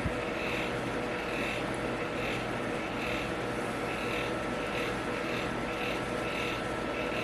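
Electric fan running steadily: a constant whirring hum with a few steady tones and a faint whoosh that pulses about once a second. A single light tap right at the start.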